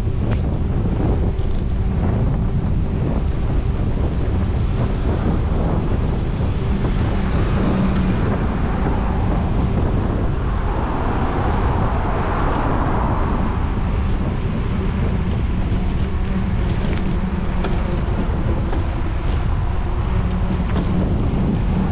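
Steady wind rumble buffeting the microphone of a camera riding on a moving bicycle. About halfway through, a passing car swells up and fades away under it.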